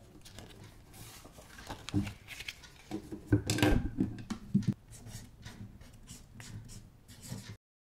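Paper rustling as a card on a ring binder is flipped over, loudest a little past the middle, then short scratching strokes of a black marker writing on the card. The sound cuts off to complete silence just before the end.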